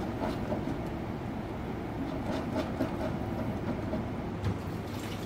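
Steady low rumbling of a pot of grapefruit sweet soup cooking on an induction cooktop, with a few faint knocks of wooden chopsticks stirring against the steel pot.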